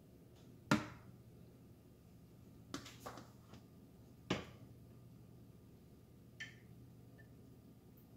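Kitchen utensils and dishes knocking and clicking while food is served: about five short, sharp knocks, the first the loudest, over a faint steady hum.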